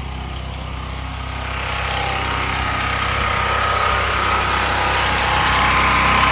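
DuroMax XP4400E portable gasoline generator running steadily at a constant speed, growing gradually louder and brighter from about a second and a half in.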